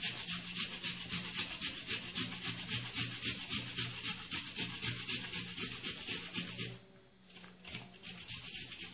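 Peeled apple being grated on a handheld metal grater: quick, even strokes that stop about two-thirds of the way through, followed by a few softer, scattered strokes.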